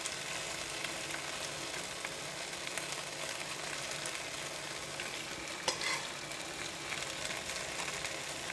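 Grilled saba mackerel fillets sizzling steadily in their own hot fish oil in a parchment-lined pan as teriyaki sauce is spooned over them, with a single short click a little past halfway.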